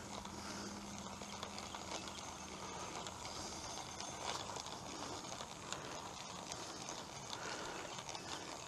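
Faint mechanical clicking of a fishing reel being wound, with the line snagged in a tree.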